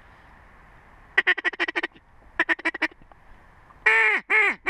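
A duck call blown at close range. It starts with two quick runs of short chattering notes, then gives three loud, drawn-out quacks that each fall in pitch.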